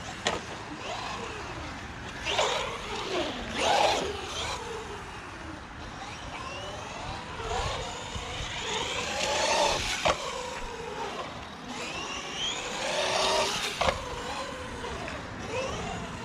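Bezgar HM124 1/12-scale brushless RC car driving: its motor and drivetrain whine rises and falls in pitch as it speeds up and slows, over tire noise, with a few sharp knocks.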